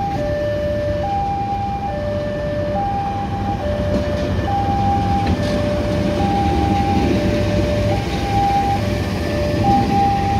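Level-crossing warning alarm alternating between a higher and a lower tone, each held just under a second, over the steady rumble of a passing passenger train hauled by a CC 206 diesel-electric locomotive. The rumble grows louder a few seconds in as the locomotive comes close.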